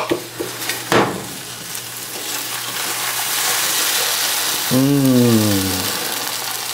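Egg frying in a hot nonstick pan as an omelet is lifted and turned with a spatula, runny egg running out into the pan: a steady sizzle that swells in the middle. A click about a second in, and a short falling vocal murmur about five seconds in.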